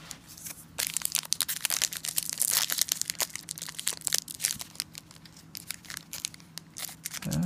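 Foil wrapper of a Momentum football trading card pack being torn and peeled open by hand. The foil crinkles in many sharp crackles, which start about a second in, are thickest for the next two seconds, then come more sparsely.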